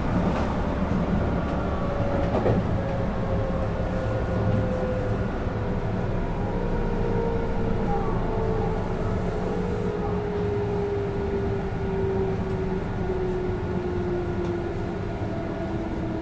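Running noise of a JR West 221 series train, heard from inside a motor car with MT64 traction motors. A motor whine falls steadily in pitch over the running noise as the train slows.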